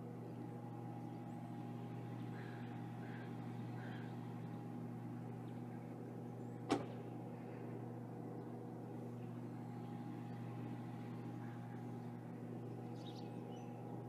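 Steady low mechanical hum, like a motor running at an even speed, with one sharp click about halfway through and a few faint high chirps.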